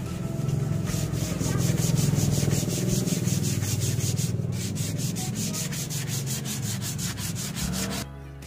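Fine sandpaper rubbed by hand in rapid, even back-and-forth strokes over a primed teak board, briefly pausing once midway and stopping near the end. This is the sanding between coats of PU insulator primer, knocking the dried coat flat to close the open pores before the next spray.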